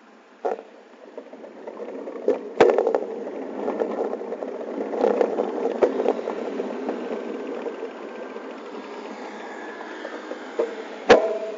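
Street traffic noise rising to a steady level in the first two seconds. A few sharp knocks cut across it, about half a second in, twice around two and a half seconds, near six seconds and once loudly near the end: the camera being handled as it is moved.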